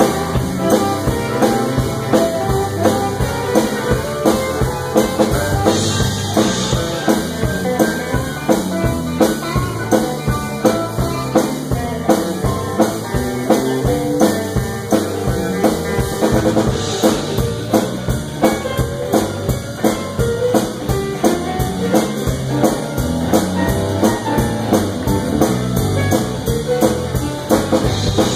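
Live band playing, with a drum kit keeping a steady beat under electric guitar and bass.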